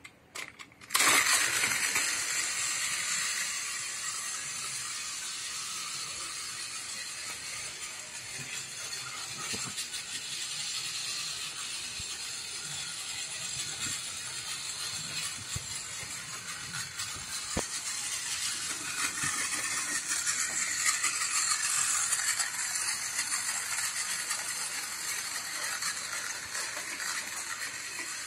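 Battery-powered toy tram switched on with a click about a second in, then its small motor whirring steadily and its wheels rattling along plastic track. The sound grows louder and softer as the tram moves nearer and farther around the layout.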